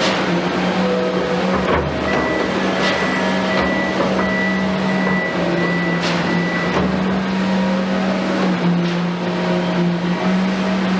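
Komatsu PC210 excavator's diesel engine running steadily, with a high whine starting about two seconds in and lasting several seconds, and several sharp knocks along the way.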